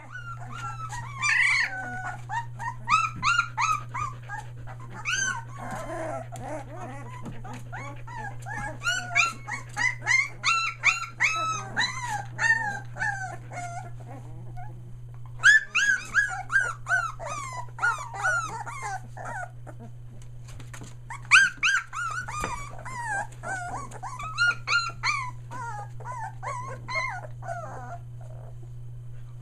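A litter of three-week-old Australian Shepherd puppies whining and yelping: many short high cries rising and falling, overlapping, with a couple of brief lulls. A steady low hum sits underneath.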